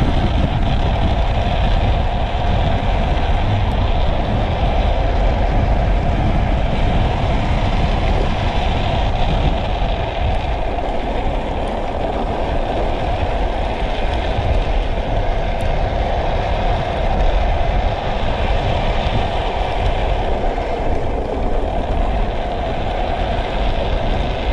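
Steady rush of wind on an action camera's microphone with the rumble of speed trike wheels rolling on asphalt, during a fast downhill run at about 60 km/h.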